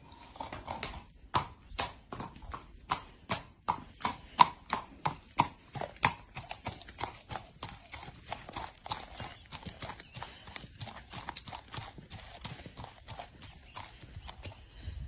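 Horse walking, its hooves clip-clopping on concrete at about two strikes a second. After about six seconds the hoofbeats become softer and less distinct as the horse moves onto a dirt track.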